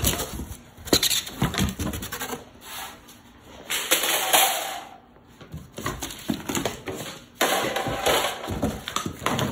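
Cardboard rustling and sheet-metal grill parts clattering and scraping as a new grill is unpacked from its box, with knocks in the first couple of seconds and longer rustling, scraping stretches about four seconds in and again near the end.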